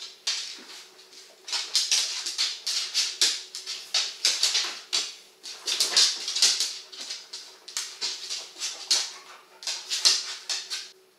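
Two Hungarian vizslas, an adult and a puppy, play-fighting: a fast, uneven string of short whimpers, yips and scuffling sounds.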